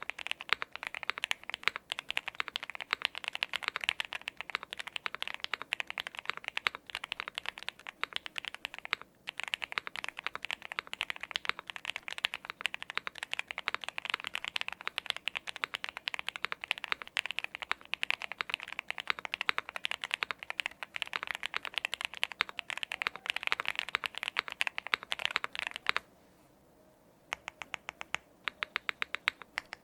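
Fast, continuous typing on a fully foamed Mr Suit custom mechanical keyboard with a POM plate, stock TTC Wild switches and Domikey keycaps, giving a muffled, marbly clack. The typing breaks off briefly once, stops near the end, then resumes as slower single key presses.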